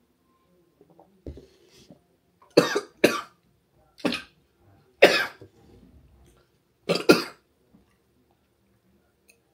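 A man coughing: about six loud coughs in short bouts over several seconds, the first and last coming as quick pairs.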